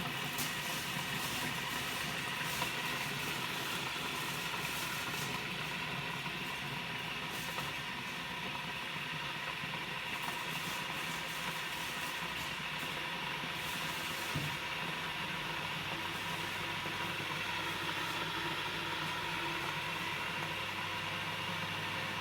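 Leaking coffee machine giving a steady hiss over a mechanical hum, with a few faint ticks; a low steady hum joins about two-thirds of the way through.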